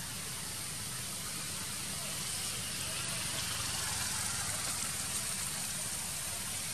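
Steady outdoor background noise: a low rumble of road traffic with an even hiss above it.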